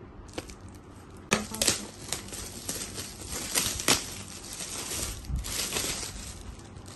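Shiny metallic foil gift wrap being torn and crumpled off a gift box: a dense run of sharp crackles and rustles starting about a second in.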